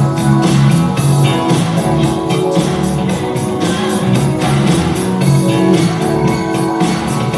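Rock-style music with guitar and drums played loud through a pair of Topp Pro Soho S12 PA loudspeakers in a sound check, with a steady beat.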